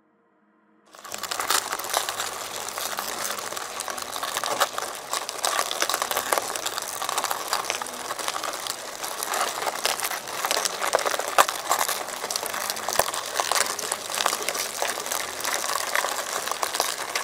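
Dense crackling, crunching ASMR sound effect made of many small sharp clicks and crinkles, starting about a second in and running on without a break.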